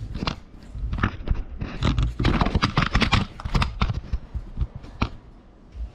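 Quick, irregular run of knocks and clicks from working on a fly screen frame and its fiberglass mesh, densest in the middle, with one last sharp knock near the end.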